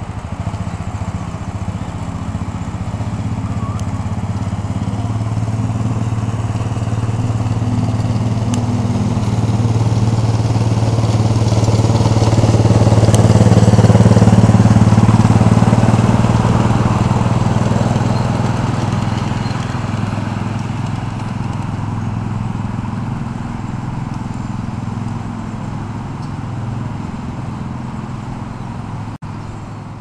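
An engine running steadily at an even pitch. It grows louder to a peak about halfway through, then slowly fades.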